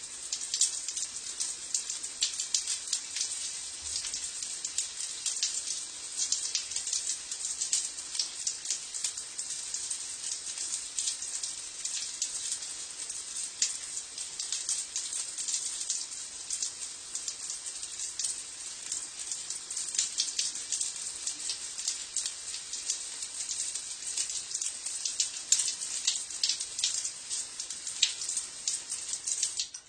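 Shower water spattering and running on a stone floor: a steady, dense patter of droplets with a hissy, splashy character. It cuts off abruptly at the very end.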